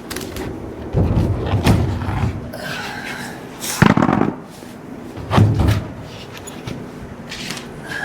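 A few heavy bangs and thuds, a pair about a second in, the loudest near four seconds in and another a little later, with lighter knocks between.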